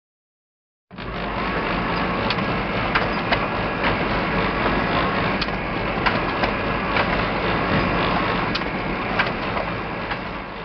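Photocopier running: a steady mechanical whir and rumble with scattered light clicks, starting about a second in and cutting off at the end.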